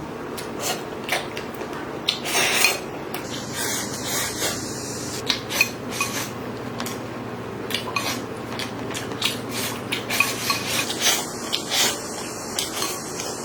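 Serving spoon clinking and scraping in a clay pot, with irregular sharp knocks, as pieces of blood tofu and broth are scooped out.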